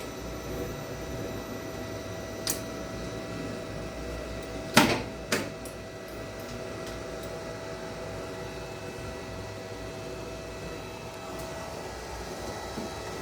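Steady hum of lift machinery with a constant whining tone over it. It is broken by a few sharp clicks, the loudest about five seconds in.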